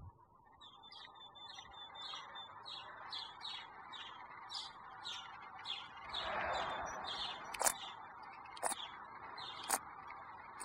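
A small bird chirping over and over, about two short high chirps a second, over a steady background hiss. Three sharp clicks about a second apart come near the end.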